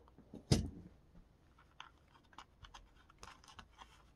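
Faint handling sounds: a single knock about half a second in, then light scattered clicks and scratches as fingers work a small plastic hinge into the hinge line of a foam control surface.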